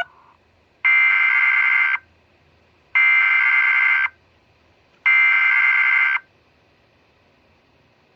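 Emergency Alert System SAME header tones: three identical bursts of shrill, warbling digital data, each about a second long with a second's gap between them. They encode the alert message, here a required weekly test.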